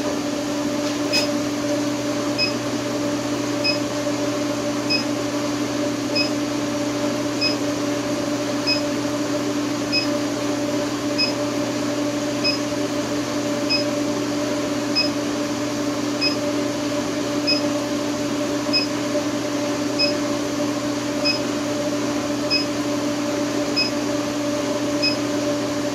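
High-frequency induction forge running with a steady hum while it heats a steel bar in its coil, with a short high beep repeating about every second and a quarter.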